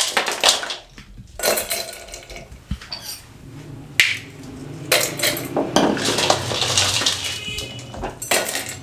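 Chunks of ice being broken apart by hand and dropped into glass wine glasses: irregular bursts of clinking and clattering with short pauses between, and one sharp clink about four seconds in.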